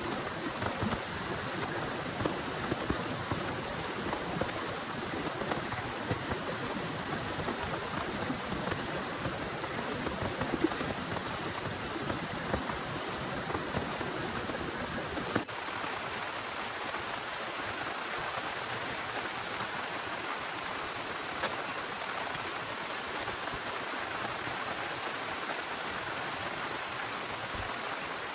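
Heavy rain falling steadily as an even hiss. About halfway through, the sound changes abruptly, becoming thinner in the low end with occasional sharp drips.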